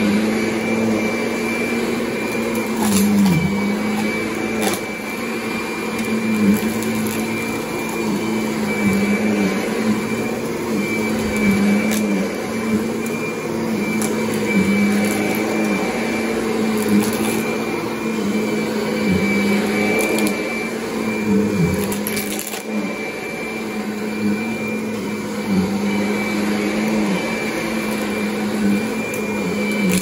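Kirby Sentria upright vacuum running on carpet, a steady motor hum with a high whine, its pitch sagging briefly now and then as the nozzle is pushed and pulled over the pile.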